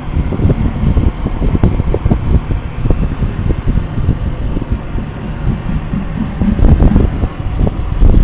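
Wind buffeting the camera microphone: a loud, uneven low rumble made of many irregular thumps.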